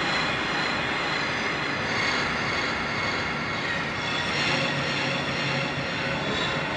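Dark ambience sound effect: a steady, dense wash of noise with faint tones drifting in and out, and a low hum that comes in a little past the middle.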